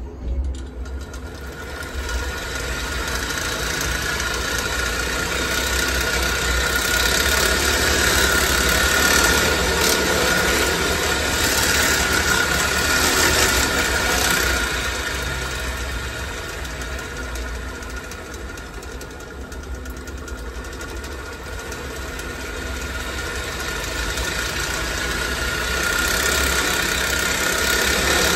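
Upside-down bicycle's rear wheel and homemade spring-loaded cassette gear shifter spinning fast: a steady mechanical whirring with a high whine. It speeds up early on, slows briefly about two-thirds of the way through, then picks up again.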